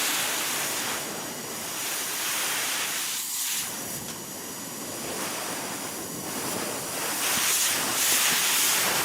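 Industrial air compressor running: a steady hiss of rushing air, strongest in the high range, wavering a little and growing slightly louder near the end.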